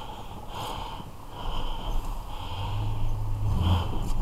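Heavy breathing, about one breath a second, over the low steady hum of the vehicle's engine inside the cab.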